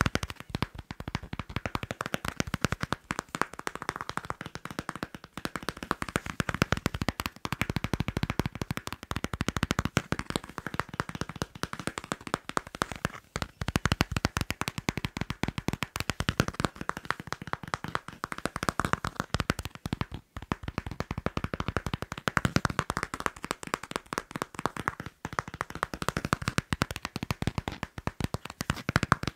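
Rapid tapping and scratching on a passport: a dense run of quick, crisp taps with a few very brief pauses.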